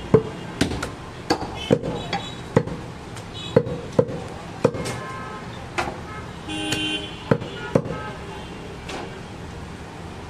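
Heavy butcher's knife chopping through goat meat into a wooden chopping block: a quick series of sharp chops, thinning out in the second half. A vehicle horn sounds briefly about six and a half seconds in.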